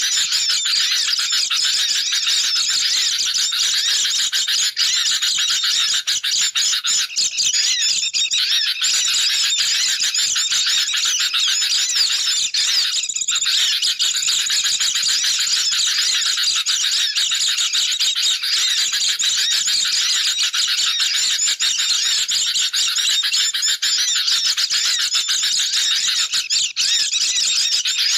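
A dense, unbroken chorus of agitated sooty-headed bulbuls and white-eyes, many overlapping rapid chirps and twittering whistles. It is a bird-lure call mix of excited, scolding birds, used to draw wild birds in.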